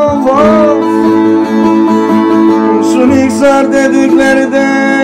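A man singing long, held notes that bend and waver, accompanied by a plucked bağlama (long-necked saz), in Turkish folk song style.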